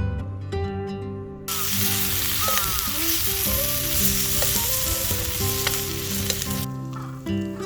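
Food sizzling as it fries in a hot pan, with a few crackles and pops, starting about a second and a half in and cutting off abruptly near the end. Background music plays underneath.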